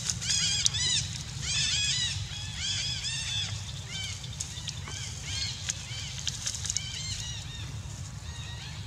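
Young macaques squealing: a rapid run of short, high-pitched, arching squeals that thin out and grow fainter in the second half.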